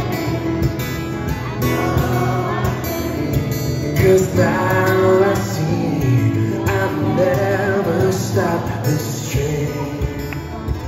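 Live solo acoustic guitar playing through an arena sound system, with many audience voices singing and cheering along, loudest about four to six seconds in.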